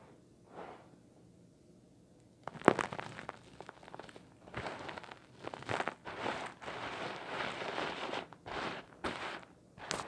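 Small stones and glass gems crunching and clattering in a plastic tray as a hand stirs through them, in irregular bursts of rattling with sharp clicks, starting about two and a half seconds in after a quiet start.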